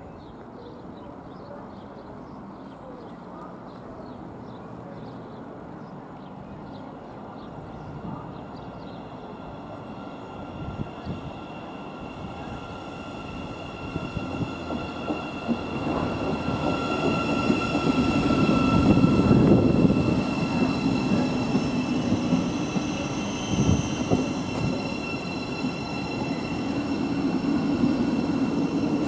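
Thameslink Class 700 Desiro City electric multiple unit pulling into the station to stop. It grows louder from about halfway and is loudest a few seconds later, with steady high whining tones over the rumble of the train.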